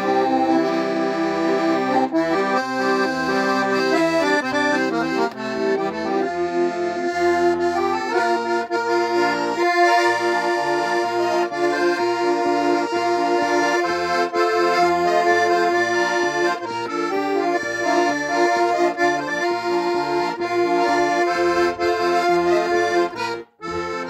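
Piano accordion playing a traditional folk tune: a melody in held chords over a pulsing bass accompaniment. The playing breaks off for a moment near the end and then carries on more softly.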